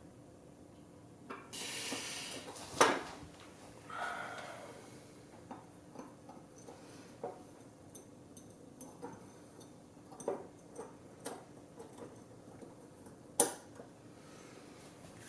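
Small tools and parts being handled at close range during a delicate gimbal ribbon-cable repair: scattered light clicks and taps, a brief rustling scrape about two seconds in, and two sharper clicks, one near the start and one near the end.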